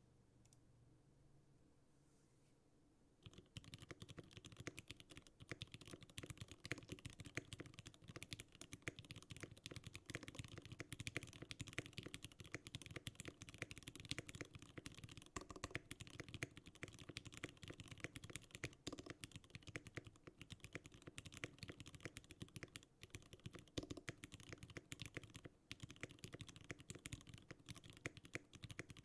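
Fast, continuous typing on a 60% gasket-mount mechanical keyboard with Gateron Yellow linear switches lubed with Krytox 205g0, a buttery keystroke sound. The typing starts about three seconds in.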